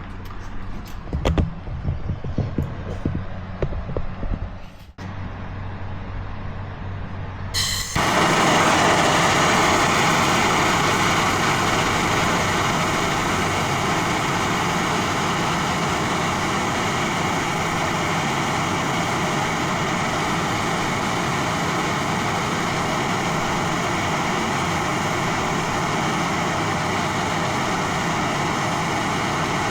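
A few knocks and clatter of tools being handled. About 8 seconds in, a gas torch lights with a sudden start and then burns with a steady hiss, heating the aluminium for an Alumaweld repair.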